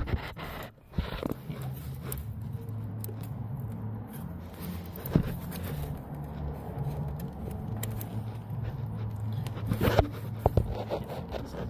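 Small scrapes and a few sharp clicks of fingers working the camshaft position sensor's plastic wiring plug, over a steady low hum.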